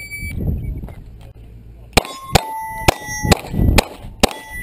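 A shot timer's electronic start beep, then five semi-automatic pistol shots, each followed by the ring of a steel target plate being hit. The first four shots come in quick succession, about half a second apart, and the fifth follows after a short pause.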